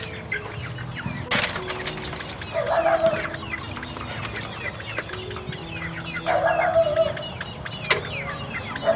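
Chickens clucking in short bursts a few seconds apart, with thin high chirping throughout. Two sharp knocks, one about a second and a half in and one near the end.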